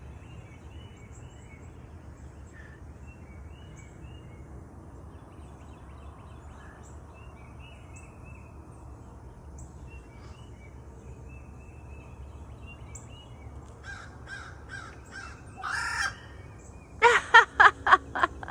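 Faint chirping of small birds, then near the end a loud run of harsh bird calls, about five in quick succession.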